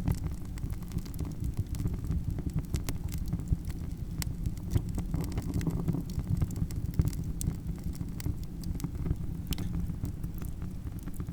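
Campfire crackling: scattered sharp pops and snaps at irregular intervals over a steady low rumble of the burning fire.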